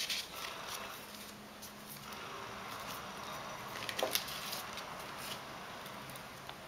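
Paper and thin card rustling and crinkling as leaflets are pulled out of a cardboard documentation folder, with sharper crackles at the start and about four seconds in.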